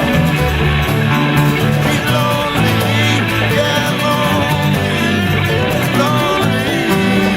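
Folk-rock music: a band plays an instrumental passage led by guitar over sustained bass notes, with no lead vocal.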